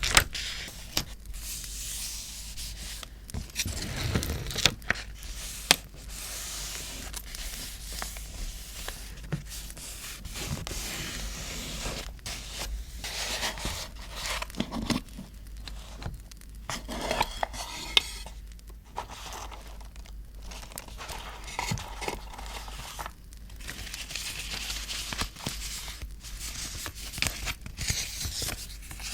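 Paper being handled for scrapbooking: tearing, crinkling and scraping in irregular rustling stretches, with a few sharp clicks or taps between them.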